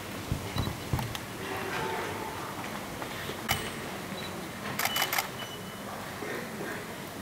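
Camera shutters clicking: a few scattered single clicks, then a rapid burst of about four about five seconds in.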